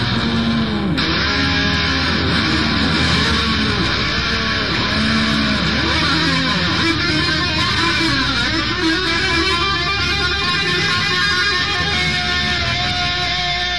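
Punk rock song with electric guitar, its notes gliding up and down in pitch through the middle.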